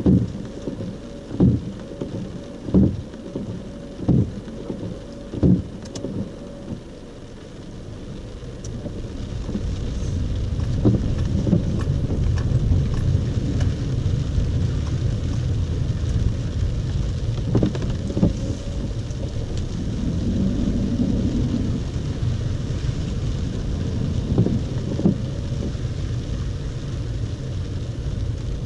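Inside a car in heavy rain: the windscreen wipers sweep five times, about one stroke every second and a half. From about eight seconds in, the car's engine and tyres rumble steadily as it drives off over wet ground, with rain falling on the car throughout.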